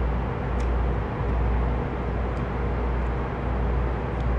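Steady low rumble and hiss of background noise, swelling and easing every second or so, with a few faint ticks.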